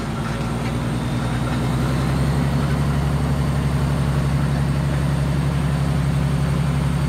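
International 9200 Eagle truck's 12.0-litre inline-six diesel idling steadily, growing louder over the first two seconds and then holding an even, low beat.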